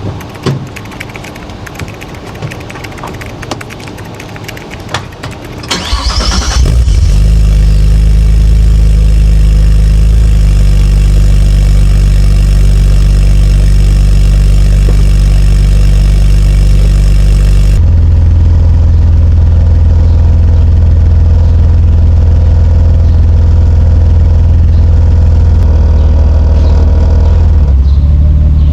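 Nissan Skyline R34 GT-t's turbocharged straight-six (RB25DET) cranked and started about six seconds in, after a few scattered clicks and knocks, then running at a loud, steady idle. The idle note changes about two-thirds of the way through, with the low hum getting stronger.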